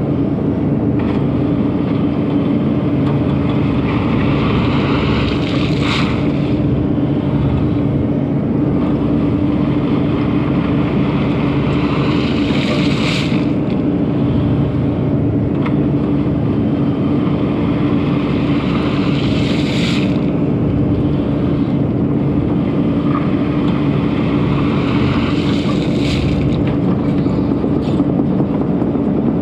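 Takeuchi TB2150 excavator's diesel engine running steadily under work, with a brief swell of higher-pitched noise about every six to seven seconds.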